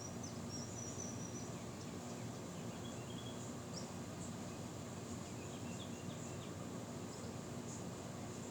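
Outdoor ambience: a steady wind rush, with small birds giving scattered short chirps over a constant high insect drone.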